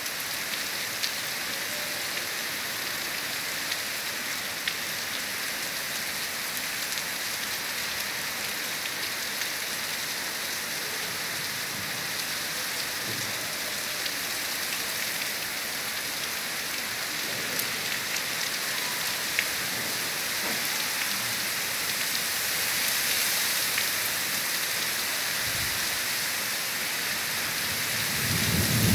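Heavy monsoon rain pouring steadily, a dense hiss with a few sharp drip ticks. A low rumble swells in near the end.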